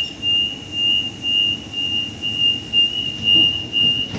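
Waratah Series 2 train's door-closing warning tone: a loud, high beeping at about two beeps a second, signalling that the doors are about to close.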